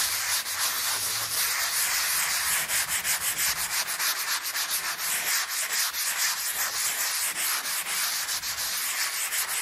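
Coarse sanding sponge rubbed by hand over dried joint compound on a drywall patch, in quick back-and-forth strokes: the first coat being sanded smooth and its edges feathered.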